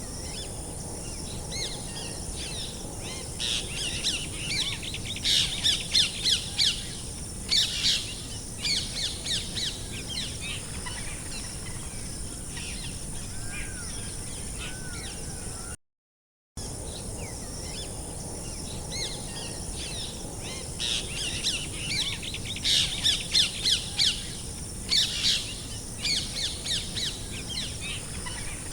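Songbirds chirping in bursts of quick, high notes over a steady high hiss. There is a brief dropout about sixteen seconds in, after which the same run of chirps recurs, as in a looped nature ambience track.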